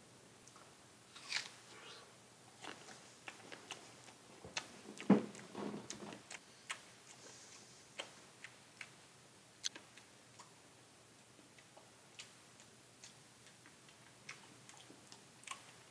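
A person biting into and chewing a crisp apple: irregular crunches and small wet clicks, the loudest bite about five seconds in.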